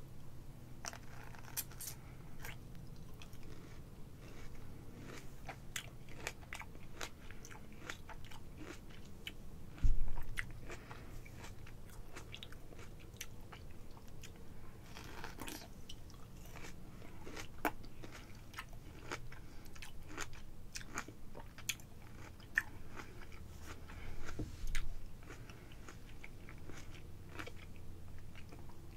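Close-up mouth sounds of biting into and chewing a ripe apricot, with many short clicks throughout. One loud low thump about ten seconds in.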